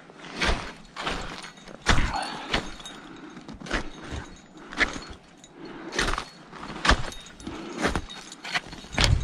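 A climber's footsteps crunching in snow and scuffing on rock along a mountain ridge, an uneven step about once a second.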